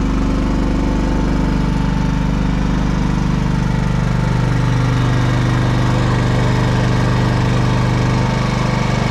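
Genmax GM10500iETC inverter generator's 458 cc four-stroke OHV engine running steadily on natural gas. Its note shifts about four seconds in and again near the end.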